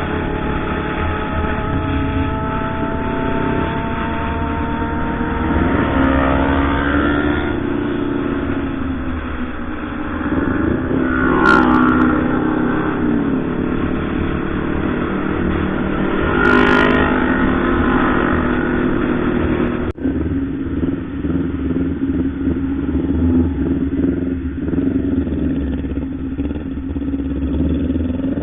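Kawasaki Ninja ZX-25R 250 cc inline-four motorcycle engine on the road, revving up and falling back several times with a high, rising whine. After an abrupt break about two-thirds through, the engine runs on at a steadier, lower note.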